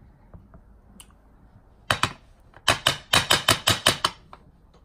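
Light, sharp taps of a spatula and glass jar being knocked while whipped cream is packed into the jar: two taps, then a quick run of about eight taps near the end.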